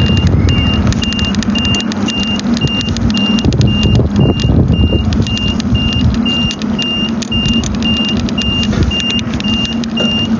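Bus interior with the engine running, a steady low hum and rumble, while a high electronic beep repeats about two and a half times a second, over light rattles and clicks.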